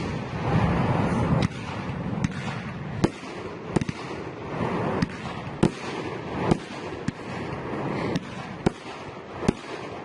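Fireworks display: more than a dozen sharp bangs from aerial shells bursting, about one every half second to a second, over a continuous noisy rush.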